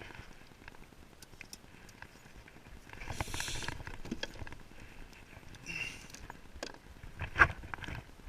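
Scattered knocks and taps on a kayak, with a brief rush of water about three seconds in and one sharp, loud knock near the end.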